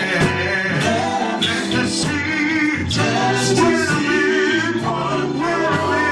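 A song playing: a man singing over a band, with a steady beat of about two strokes a second.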